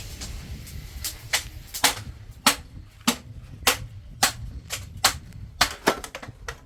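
Metal hammer blows striking steel in knife forging, about two sharp strikes a second at a slightly uneven pace, over a steady low hum.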